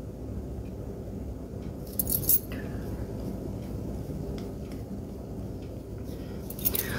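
Steady low background hum, with two or three light clinks of small hard objects about two seconds in.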